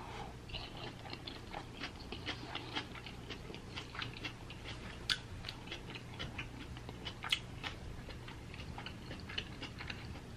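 Chewing a crispy fried birria taco: quiet, irregular small crunches and wet mouth clicks, with a couple of sharper crunches about five and seven seconds in.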